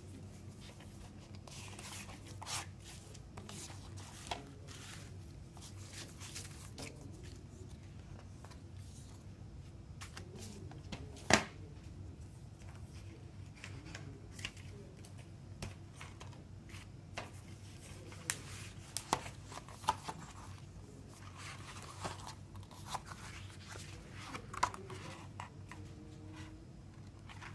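Hands handling a CD slipcase and photo book: plastic and paper rustling and sliding, with scattered light clicks and taps, the sharpest click coming about eleven seconds in. Pages of the photo book are turned near the end.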